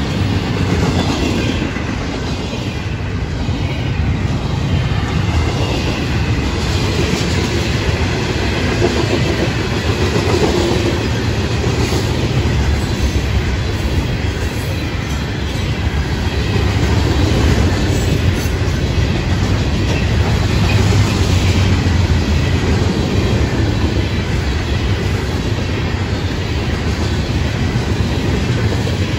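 Freight cars of a loaded mixed freight train rolling past close by: the steel wheels run loud and steady on the rails, with a few clicks over the rail joints.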